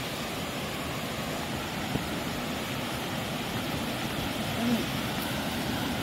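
Steady rushing of a waterfall, an even wash of water noise, with one small click about two seconds in.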